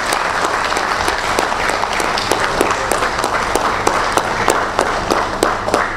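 Audience applauding: a steady round of many hands clapping, with individual sharp claps standing out.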